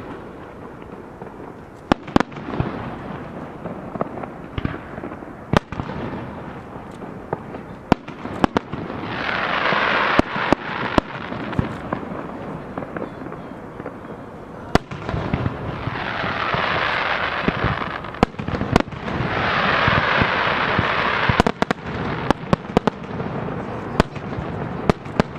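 Aerial firework shells bursting in an irregular run of sharp bangs, a few seconds apart. Three spells of dense crackling, each about two seconds long, come from the bursting stars.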